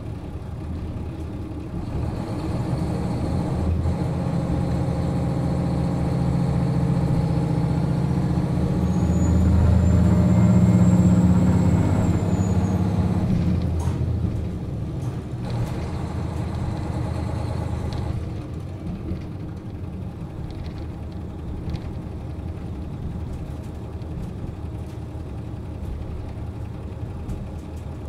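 JR Hokkaido KiHa 40 diesel railcar running, heard on board. The diesel engine pulls harder over the first dozen seconds, with a thin whine rising above it. It drops away about halfway through, leaving a quieter, even running noise.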